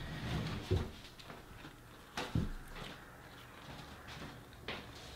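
Scattered soft knocks and clicks of food being handled on a table: fries picked from cardboard takeout trays and dipped in a small sauce cup. There is a thump right at the start, a couple of sharper clicks about two seconds in, and another near the end.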